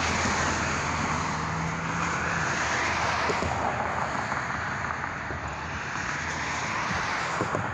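Road traffic: vehicles passing, a steady rush of tyres and engines that swells and fades, with a low engine hum in the first couple of seconds.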